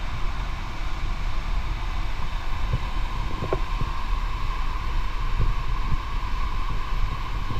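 Steady rushing noise with rumbling wind buffeting on the microphone and a few faint knocks.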